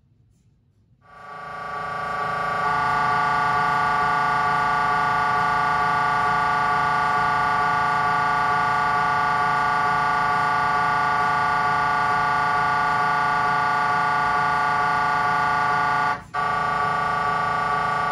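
GE Signa Excite 1.5T MRI scanner running a coronal T1 FSE-XL pulse sequence: a loud, steady pitched drone with many overtones, made by the gradient coils. It fades in about a second in and breaks off for a moment near the end.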